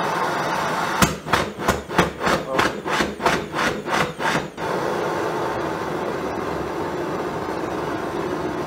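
Homemade air-jet propane torch running with a steady rush of air and flame; about a second in it breaks into a rapid chugging of about a dozen pops, roughly three a second, the combustion pulsing unsteadily, then after about three and a half seconds it settles back into a steady rush.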